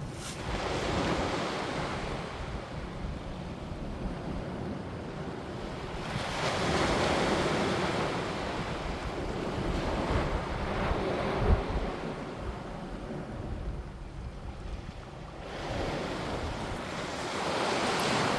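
Waves washing in, a rushing sound that swells and fades every few seconds, with wind rumbling on the microphone. A brief thump comes about eleven seconds in.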